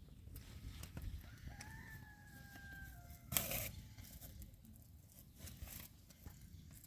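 A rooster crowing once: a single long call held for about a second and a half, sinking slightly in pitch. It is cut off near the middle by a brief, loud noise, the loudest moment. A low rumble runs underneath.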